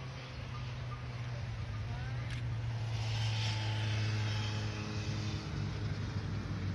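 Motor engine droning steadily, growing louder over the first few seconds and then holding.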